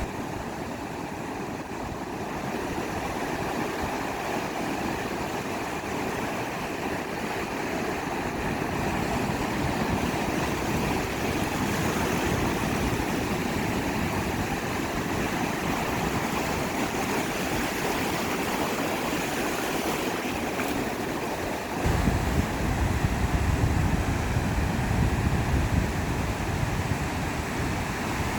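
Sea surf washing steadily onto a beach. About three quarters of the way through, a louder, uneven low rumble starts suddenly and stays.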